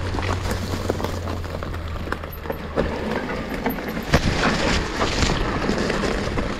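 E-mountain bike ridden down a rough enduro trail: tyre noise on dirt with a dense clatter of knocks and rattles from the bike. A steady low hum underneath stops a little under three seconds in.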